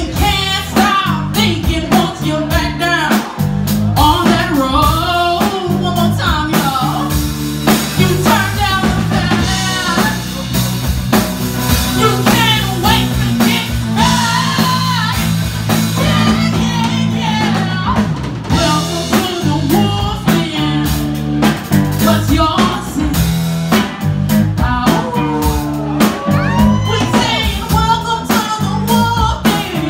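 Live blues band playing: a woman singing lead over electric guitar, electric bass and a drum kit.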